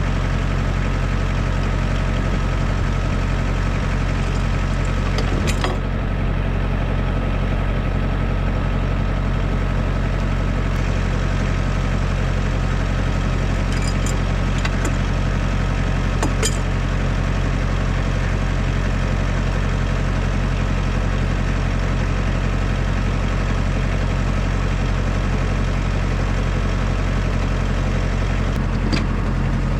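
Tractor engine running steadily at constant speed, with a few brief clicks or knocks over it.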